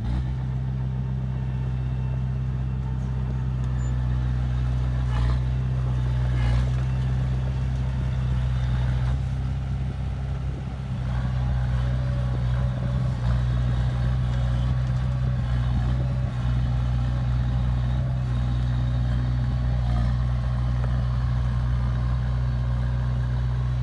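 Diesel engine of heavy earthmoving machinery running steadily, a constant low drone, with a couple of faint knocks about five and six seconds in.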